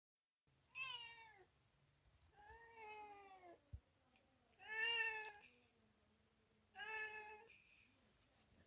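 Domestic cat meowing four times, a second or two apart, the third call the loudest: a cat calling for attention.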